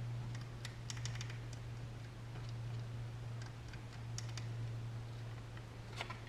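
Irregular light plastic clicks of the CTEK Multi US 3300 charger's mode selector button being pressed and worked, its contacts freshly wetted with electrical contact cleaner to cure a sticking button. A steady low hum runs underneath.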